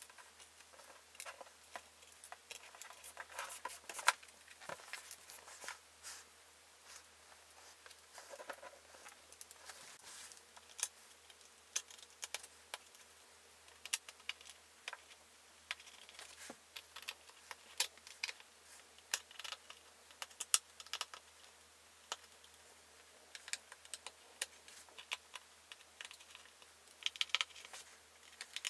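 Scattered light clicks and taps of the MacBook Pro's back plate being fitted and its small screws being turned in by hand, with metal tool-on-screw ticks every second or so.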